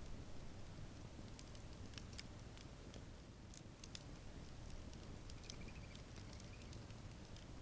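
Wood campfire crackling softly: scattered sharp pops and snaps over a steady low rumble.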